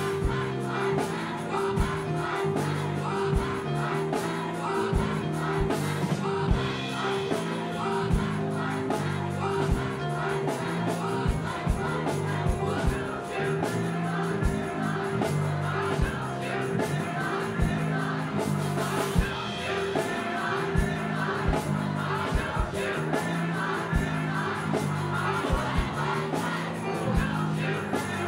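Live band playing: grand piano, electric bass guitar and drum kit, with a steady drum beat under sustained notes.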